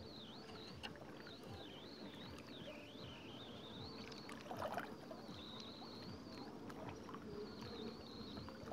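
Gentle lake water lapping against the rocks of a breakwater, with a short splash about halfway through as a tilapia is let go into the water.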